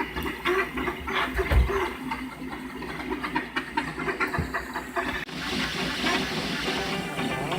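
Monoprice Delta Mini 3D printer running a print, its stepper motors giving quick changing whirs and ticks as the delta arms move. About five seconds in, this cuts off and music starts.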